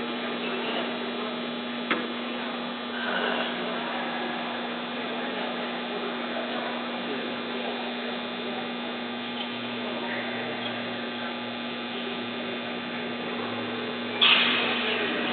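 Steady electrical hum over a background of indistinct noise, with a sharp click about two seconds in and a louder sudden sound near the end.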